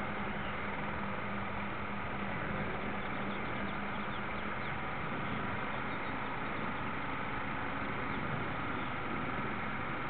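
Steady running hum of a radio-controlled model warship's drive motor and propeller, heard close up from on board, with water washing along the hull.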